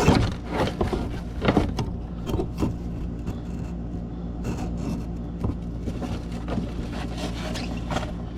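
Scattered clicks, rubs and knocks of a rubber drain hose and a hose clip being handled and fitted, over a steady low machine hum.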